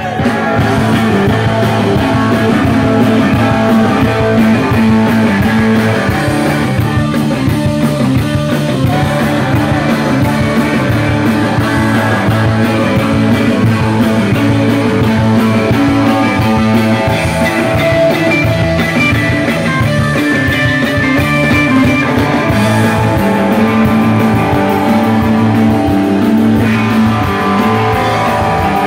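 Live rock band playing loud, with electric guitar and drums driving a steady beat, heard from in the crowd.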